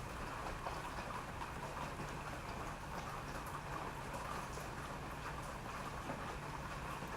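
Steady rain falling, an even patter with many individual drops ticking scattered through it.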